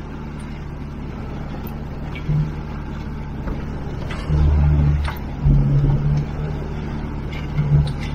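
Outboard motor of a MacGregor 26X sailboat running steadily under way in a rough, choppy sea, with louder heavy surges about four seconds in, around five and a half seconds and near the end.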